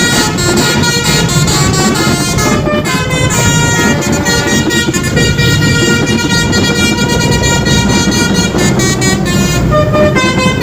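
Multi-tone Basuri-style 'telolet' musical horn playing a tune: a run of quickly changing notes, a long held chord through the middle, then more note changes near the end, over a steady low rumble.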